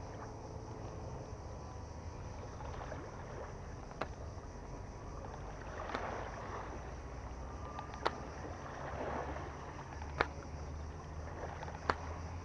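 Four sharp clicks a couple of seconds apart over a low, steady outdoor rumble: a taut braided fishing line snagged on rocks being flicked by hand to try to free it.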